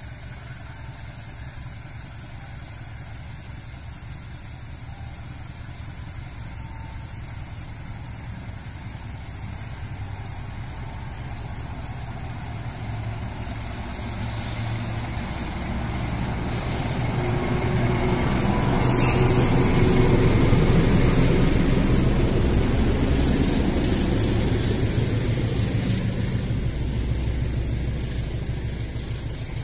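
Diesel-electric locomotive hauling a passenger train past at low speed: its engine hum grows louder as it approaches and is loudest about two-thirds of the way in as it goes by. The steel wheels and coaches rolling over the rails follow and fade slowly.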